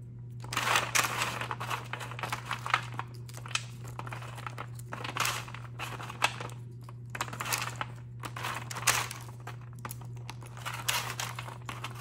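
Parchment paper crinkling and a dried slab of white-chocolate-coated cereal and pretzels cracking as it is broken apart by hand, in irregular bursts with a few sharp snaps. A steady low hum runs underneath.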